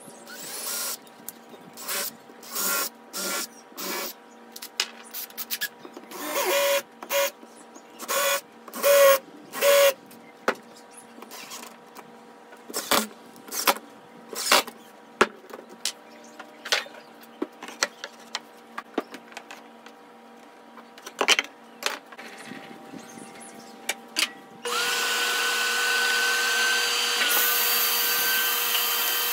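Ryobi cordless drill driving screws through a wooden strip into MDF in a series of short bursts of under a second each, followed by scattered clicks and knocks. About 25 seconds in a table saw starts and runs steadily.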